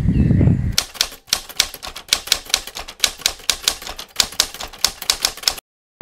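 A rapid, uneven run of sharp clicks, about six a second, that cuts off abruptly near the end.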